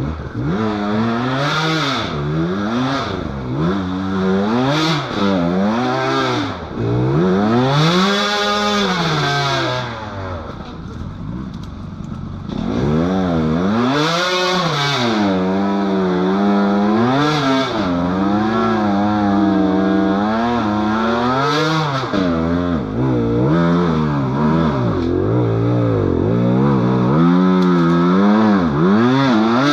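Dirt bike engine revving up and down over and over as the bike works across rough, muddy ground. It eases off for a couple of seconds about ten seconds in, then picks up again.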